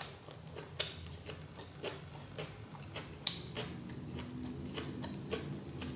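Quiet eating sounds: wooden chopsticks clicking irregularly against the plate, about half a dozen sharp ticks, the loudest a little past three seconds in, with soft chewing of lettuce between them.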